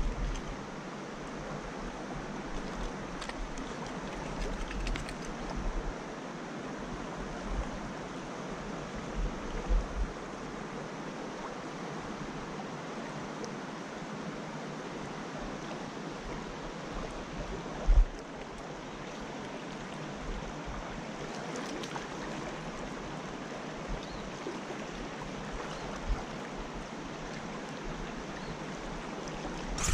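Creek water rushing over rocks in a steady wash, with a few brief low thumps, the loudest about two-thirds of the way through.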